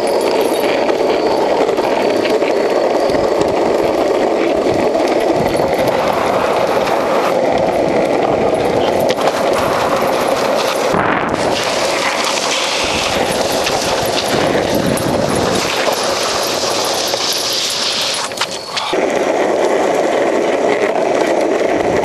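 Urethane longboard wheels rolling fast over rough pavement: a steady, loud rumble full of rapid fine rattling, briefly dropping off about eighteen seconds in before picking up again.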